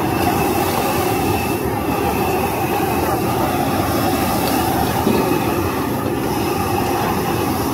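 Steady roar of commercial wok burners and kitchen exhaust fans running at full blast.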